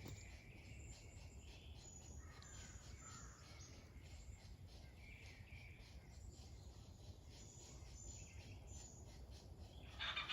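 Faint outdoor ambience: scattered bird calls over a low steady rumble, with faint insect-like ticking.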